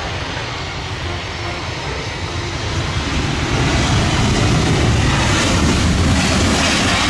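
Airplane engine noise, a steady rushing drone with a low rumble that grows louder about three seconds in.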